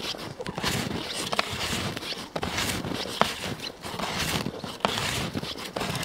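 Snowshoes crunching step after step through fresh, unbroken snow in a steady walking rhythm of about one step a second.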